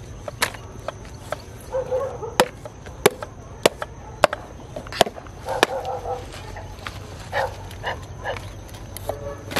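A knife chopping on a cutting board: sharp, separate knocks at a steady, unhurried pace, a little under two a second.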